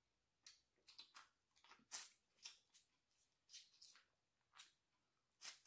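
Faint wet clicks and smacks of snow crab legs being eaten by hand: meat picked from the shell and sucked from it, in short irregular snaps spaced about half a second to a second apart.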